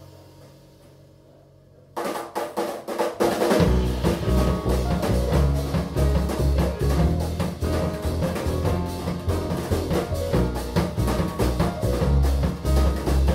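Live jazz piano trio of acoustic piano, upright double bass and drum kit. A quiet, fading held sound opens, then the drum kit breaks in suddenly about two seconds in. About a second and a half later the bass and piano come in loud and busy under the drums.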